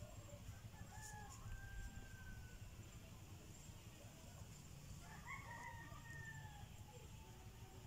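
Faint rooster crowing, with a clearer crow of about a second and a half a little past the middle, over a low steady background rumble.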